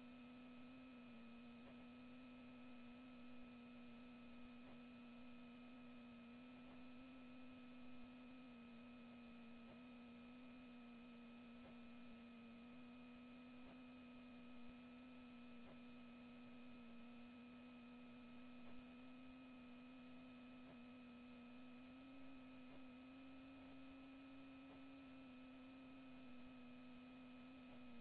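Faint steady hum: a low tone that wavers slightly in pitch, with fainter higher tones above it, under a light hiss and a few faint ticks.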